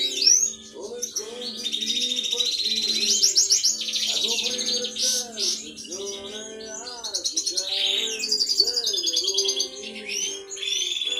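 Major goldfinch (European goldfinch of the large 'major' race) singing: a continuous run of quick twitters and buzzy trills, over steady background music.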